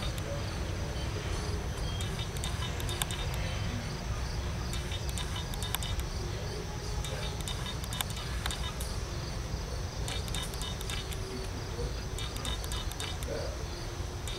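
Empty CSX coal hopper cars rolling past with a steady low rumble, the last car clearing near the end. Insects chirp over it in short, evenly repeated pulses that come and go.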